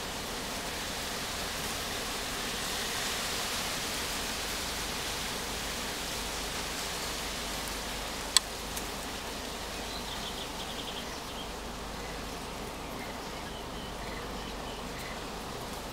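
Steady outdoor background hiss, with one sharp click about eight seconds in and a run of short high chirps a little after it.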